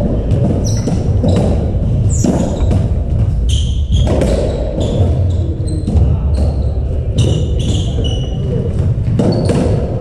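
Racketball rally in a squash court: repeated sharp knocks of the ball off rackets, walls and the wooden floor, ringing in the court, with short high squeaks of shoes on the floor over a steady low rumble.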